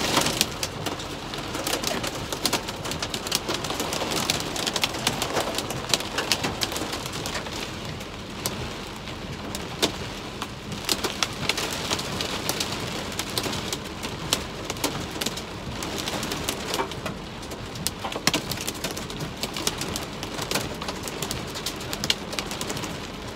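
Rain and small hail drumming on a car's roof and windshield, heard from inside the car as a dense, continuous patter of sharp taps. The storm is easing after a spell of large hail.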